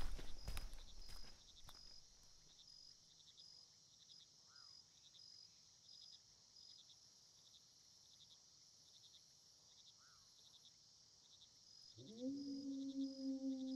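Crickets chirping steadily and faintly in a night-time ambience, with footsteps walking away and fading out in the first couple of seconds. About twelve seconds in, a low sustained tone with overtones swells up and holds.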